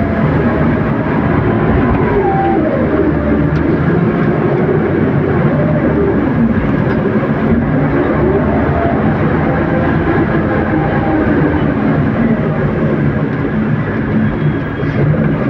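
Engine of heavy loading machinery running and revving up and down again and again as it loads stone chippings, under the steady hiss of heavy rain.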